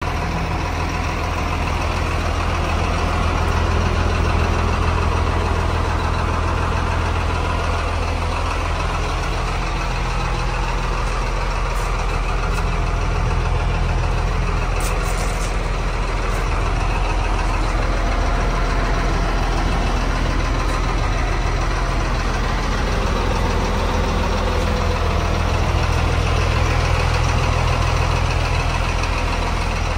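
1995 GMC TopKick truck engine idling steadily, a deep, even drone.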